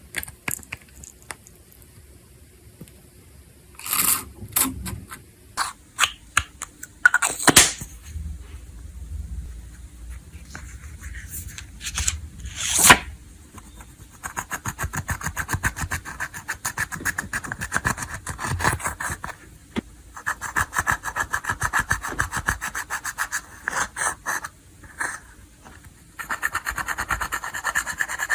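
Crunchy 'snow crispy' slime being handled: a few scattered sharp crackles and snaps at first, then from about halfway a dense, fast crackling in runs with short pauses.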